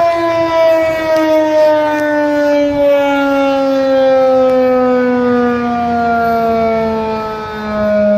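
Federal Signal 2001-130 electromechanical outdoor warning siren sounding, its tone gliding steadily lower in pitch as the rotor slows.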